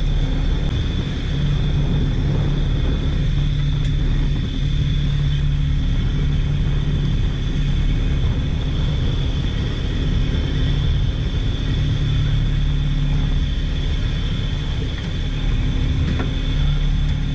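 Fishing boat's engine and deck machinery running steadily: a low drone with a thin, steady high whine above it.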